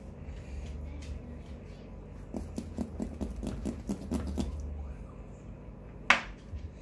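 Kitchen knife cutting butcher's twine on a crusted beef roast: a run of short, quick cutting strokes over about two seconds, then one sharp clack about six seconds in as the knife is laid down on the plastic cutting mat.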